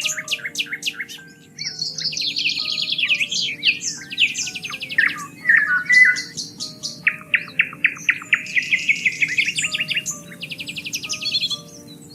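Several songbirds singing at once: fast chirping trills and rapid note series overlap almost continuously, easing off near the end.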